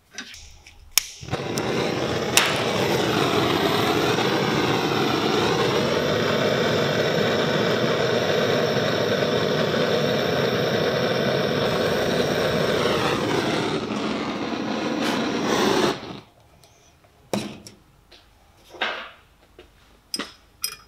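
Handheld gas torch burning with a steady, loud flame noise for about fifteen seconds, heating a seized brake-line fitting, with a click or two as it is lit. The flame cuts off suddenly, and a few separate metallic knocks follow as a spanner goes onto the fitting.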